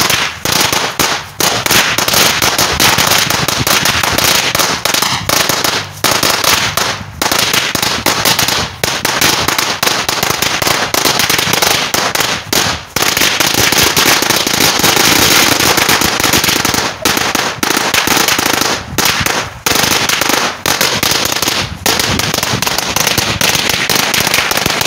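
A long string of firecrackers going off: a continuous, rapid crackle of small bangs that goes on without stopping, with only a few momentary lulls.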